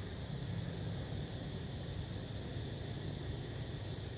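Steady outdoor background noise: a low rumble and hiss with a constant thin high-pitched tone over it, and no distinct events.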